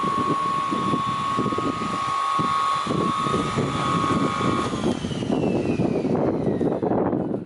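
Lignuma ND 350 edging saw running with no load, a steady high whine. Nearly five seconds in the whine cuts out and a falling tone follows as the saw winds down. Under it, an irregular low rumble grows louder, like wind on the microphone.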